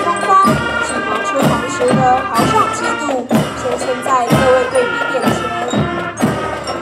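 Music with a strong beat hit about once a second under a melody that slides up and down.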